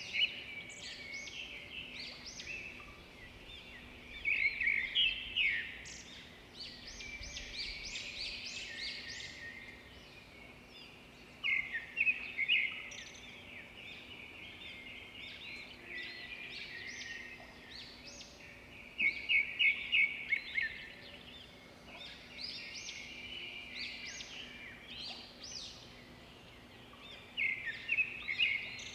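Small birds chirping and singing, with louder bursts of rapid repeated notes every several seconds over a faint steady hum.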